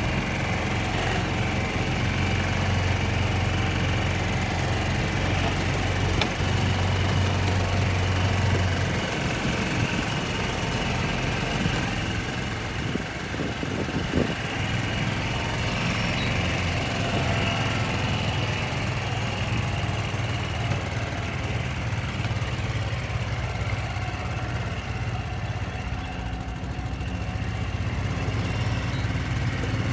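A small engine running steadily, a low even drone that eases slightly about nine seconds in.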